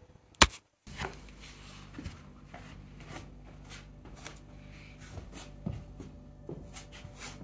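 Soft, scattered taps and rustles of a person moving barefoot on an exercise mat, getting down onto hands and knees, over a steady low room hum. One sharp click about half a second in.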